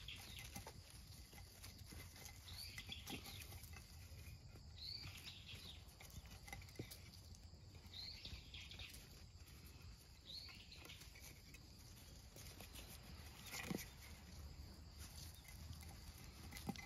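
Faint, short high-pitched calls repeating about every two to three seconds, with a single knock near the end.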